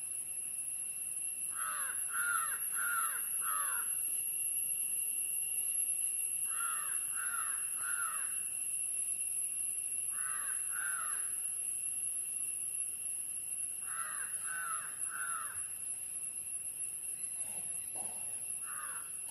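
A crow cawing in runs of two to four short caws, a few seconds apart, over a steady high-pitched hum.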